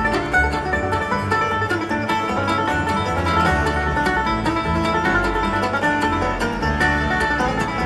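Live acoustic bluegrass band playing an instrumental passage: banjo and flatpicked acoustic guitar over upright bass, with fiddle, in a quick, steady rhythm.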